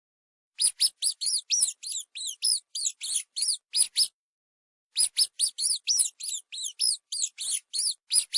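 Mouse squeaking: a rapid series of short, high-pitched squeaks, about four a second, in two runs broken by a brief pause about four seconds in.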